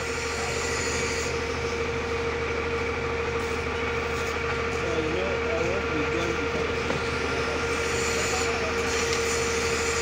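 A crane's engine running steadily while it holds and lowers a transformer radiator panel, a constant whine over a low drone. Faint workers' voices come and go in the middle and near the end.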